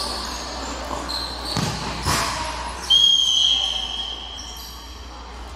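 Futsal ball being kicked and bouncing on a hard indoor court, with short high squeaks from players' shoes, echoing in a large hall. About three seconds in comes one long high squeal, the loudest sound, lasting about a second and a half.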